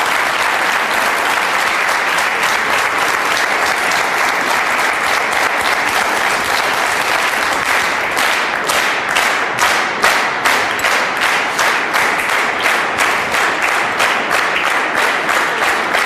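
Audience applauding loudly. About halfway through, the clapping falls into a steady rhythmic beat of roughly two to three claps a second.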